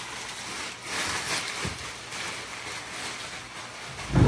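Rustling of wrapping paper and packaging being handled, with a loud thump near the end.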